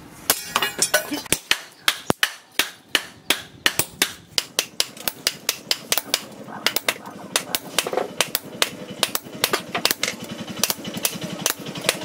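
Rapid, steady hammer blows, several a second, driving a handled hot-cut chisel through red-hot steel on a post anvil: metal-on-metal strikes slitting the edge off a blade blank forged from a chainsaw guide bar.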